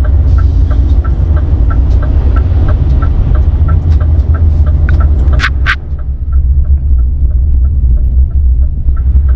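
Scania G440 truck's 13-litre straight-six diesel running under way, heard inside the cab as a steady low rumble. A light regular ticking goes along with it at about three ticks a second, and two short sharp sounds come a little past the middle.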